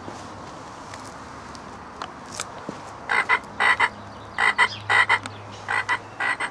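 Frog croaks from a frog-shaped garden ornament: a quick series of short, loud croaks, often in pairs, starting about three seconds in over a steady background hiss.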